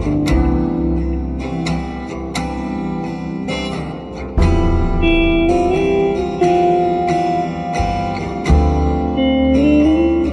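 Instrumental passage of a slowed-down pop song: strummed guitar over deep bass notes and percussive hits, with a lead line that glides up between notes.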